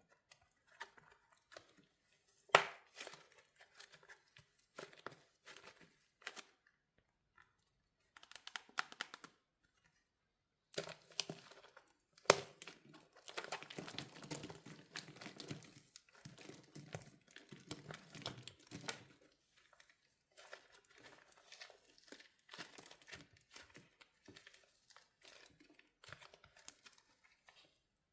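Hardened wax shell on a soft soap squishy cracking and crinkling as it is squeezed. There are two sharp snaps, a couple of seconds in and about halfway through, and a dense run of crackling just after the second.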